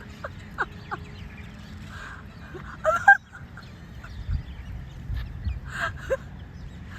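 Street ducks and other domestic fowl calling with short, separate calls, the loudest about three seconds in.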